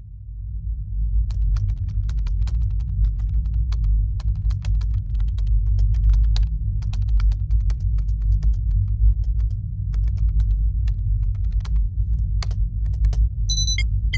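Typing on a computer keyboard: irregular key clicks over a steady low drone. Near the end, a short high electronic beep.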